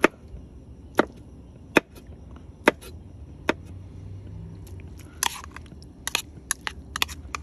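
Chef's knife chopping on a wooden cutting board in single strokes, about one a second. About five seconds in comes a short scrape, then a quicker run of lighter clicks, as of a spoon stirring in a bowl.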